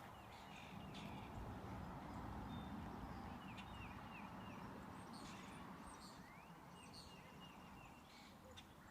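Chickens giving faint, low, contented clucks and murmurs while mud bathing. Short high chirps come in quick little runs, twice.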